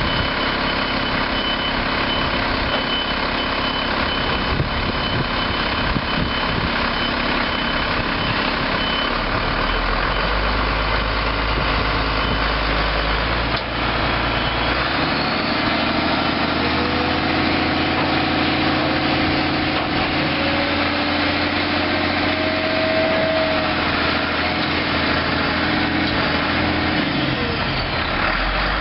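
1990 Ford F800's 6.6-litre inline-six turbo diesel running steadily. Its low note shifts about halfway through, and a faint whine rises and falls in pitch over the second half.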